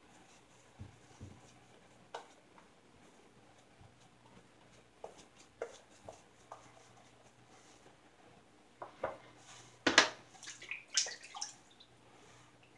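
Shaving brush working lather over the face: scattered soft squishes and light clicks, then a louder run of sharp clicks and knocks about nine to eleven seconds in.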